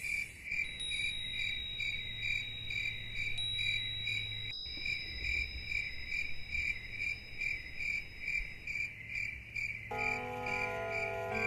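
Crickets chirping in a steady, even pulse of about three chirps a second. Sustained musical notes come in near the end.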